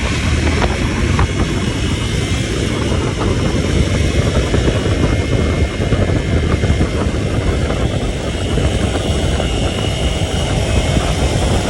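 Vehicle in motion on a rough track: steady engine and road noise under heavy wind rumble on the microphone.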